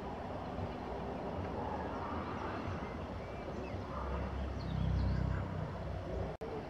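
Freight train of empty container flat wagons rolling slowly past, a steady rumble of wheels on rail that swells louder about five seconds in. A few faint bird chirps sound over it.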